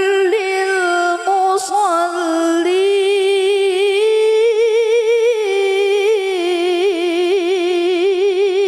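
A girl's solo voice reciting the Quran in melodic tilawah style into a microphone, holding long notes with quick wavering ornaments. The melody climbs to a higher pitch about halfway through and settles back down near the end.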